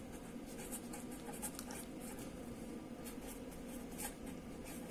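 A pen scratching across paper as words are handwritten: a run of short, faint strokes.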